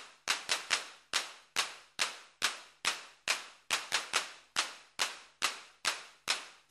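Percussion in an edited soundtrack: a steady beat of sharp hits, each with a fading ring, about two a second, with a few doubled hits.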